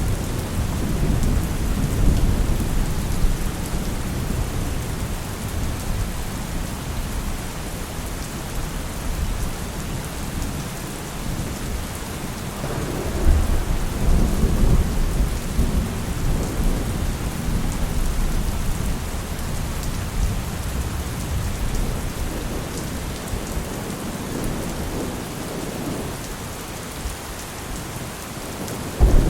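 Heavy rain falling steadily while thunder rumbles almost without pause, the rumble swelling a couple of seconds in, again about halfway through, and once more at the very end.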